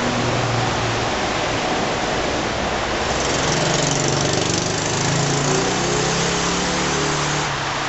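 50cc mini dirt bike engine running as the bike rides past, slightly louder as it goes by about four seconds in, over a steady hiss.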